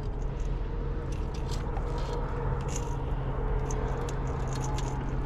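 Small scrapes and clicks of fishing gear and a landed catfish being handled on a boat, over a steady low hum.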